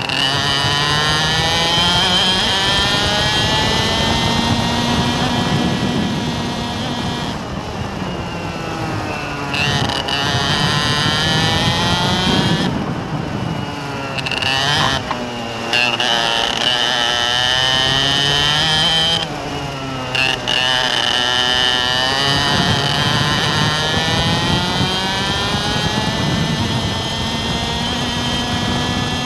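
A motor vehicle's engine running, its pitch repeatedly climbing and levelling off as it accelerates, with a few short breaks where the sound drops back.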